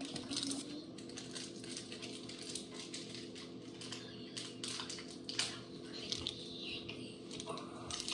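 Slime being worked by hand: a rapid, irregular patter of small crackles and clicks.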